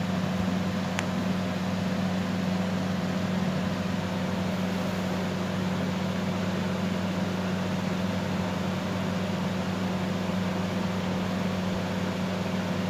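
Steady low hum with a constant hiss underneath, with one faint tick about a second in.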